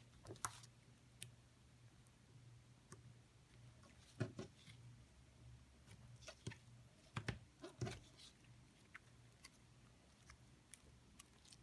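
Light pink slime being handled: scattered soft, sticky clicks and snaps, with a small cluster about four seconds in and more just past the middle.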